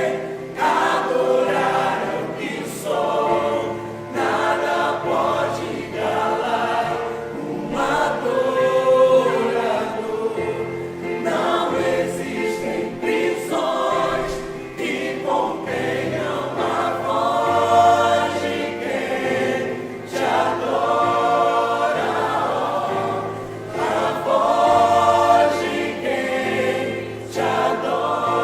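A church choir singing a hymn in several voices, in sung phrases that swell and break every few seconds, with sustained low notes underneath.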